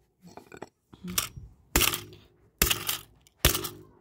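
Plastic casing of a toy walkie-talkie being struck four times, about once a second, each blow a sharp knock and rattle of plastic, as the toy is smashed apart.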